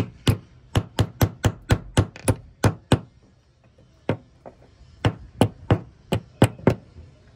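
Hammer blows on an old thru-hull fitting from inside a boat's hull, driving it out through the hull: a quick run of about ten sharp strikes, a lull of about two seconds, then six more.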